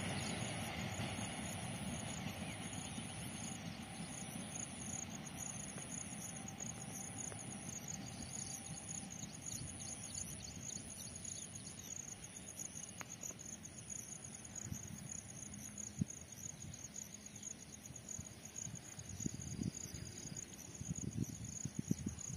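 A passing train's rumble fades away into the distance, leaving insects chirping in a steady high trill with a regularly pulsing higher note.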